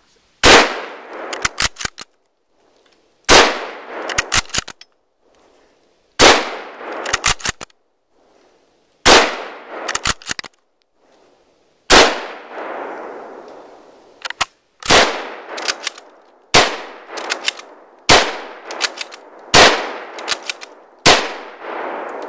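A series of about ten shots from a Mosin-Nagant M38 bolt-action carbine in 7.62×54R, each followed by a few sharp after-cracks and a fading echo. The first five come about three seconds apart and the later ones quicker, about a second and a half apart.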